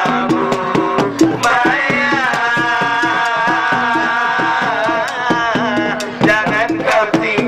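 Gondang ensemble music: double-headed hand drums beat a fast, steady rhythm under a long held melody line that wavers slightly in pitch.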